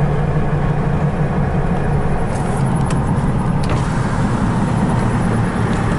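Steady car engine hum with an even rumble, and a few faint clicks around the middle.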